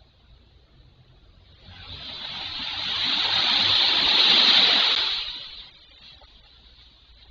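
A sea wave breaking and washing up the beach: a rushing hiss that swells for about three seconds, then fades away, over a faint low rumble.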